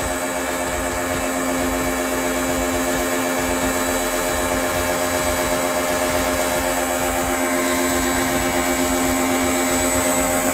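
Crown 1400-watt electric pressure washer running steadily under load, a constant motor-and-pump hum with the hiss of its high-pressure water jet spraying from the lance.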